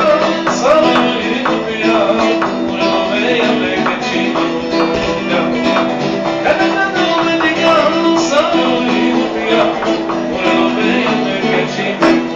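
A man singing with a lively melody while strumming an acoustic guitar steadily, the voice carried through a microphone.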